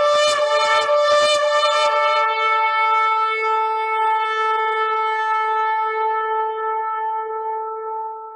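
Shofar blown: a run of short, rapid blasts for about two seconds, then one long held note that fades out near the end.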